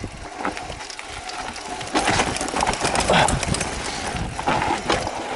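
Mountain bike riding down a rough, rutted dirt forest trail: the tyres run over ruts and roots, and the bike rattles and knocks constantly and unevenly.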